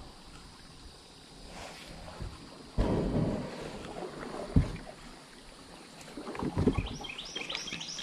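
Canoe moving through creek water only a few inches deep: a sudden splashing rush about three seconds in, sharp knocks against the hull, and more splashing and knocks near the end. A bird chirps repeatedly near the end.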